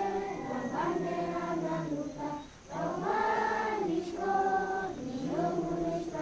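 A large group of children singing together as a choir in sung phrases, with a brief breath pause about two and a half seconds in.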